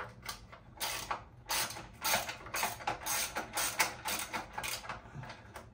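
Socket ratchet clicking, about four clicks a second, as a 10 mm nut on the underside of a mini dirt bike's front end is backed off.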